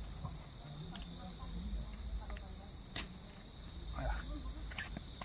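A steady, high-pitched insect chorus drones without a break, with a few faint knocks scattered through it.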